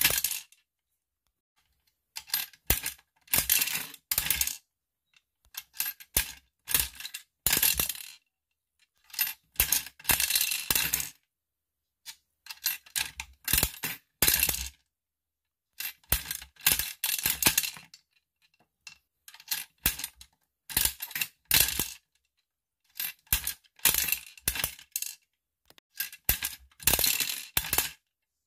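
Gumball machine's metal crank turned by hand over and over, each turn a cluster of ratcheting clicks with gumballs clattering down the chute. The bursts last a second or two and are separated by silences.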